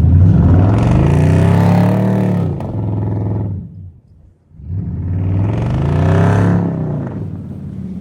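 Car engine revved hard twice, each rev climbing in pitch and then falling back over about three seconds, with a brief lull between them.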